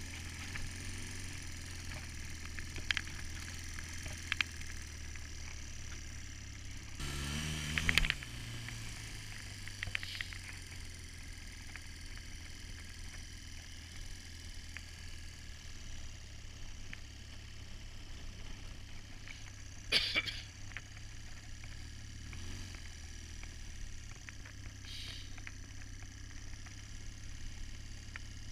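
Engine of a handlebar-steered off-road vehicle running at low speed, a steady low drone. Scattered knocks and rattles come over it, the loudest a short burst about eight seconds in and a sharp knock about twenty seconds in.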